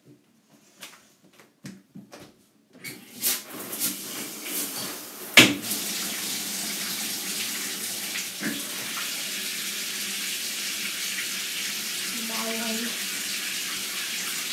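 A few small knocks and clicks, then a bathtub tap turned on about three seconds in, water running steadily into the tub. A sharp knock comes a couple of seconds after the water starts.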